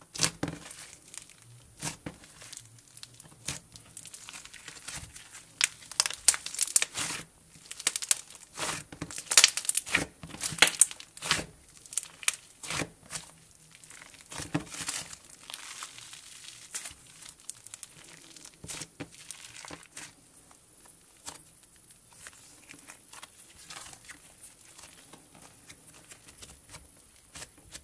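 Butter slime of slime and white Daiso clay being kneaded and stretched by hand: a dense run of small clicks and crackles, busiest in the middle and thinning out toward the end.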